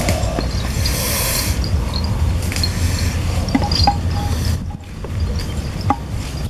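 Banana leaves rustling and crinkling as they are handled and torn, with scattered sharp clicks and a brief burst of rustling about a second in, over a steady low rumble.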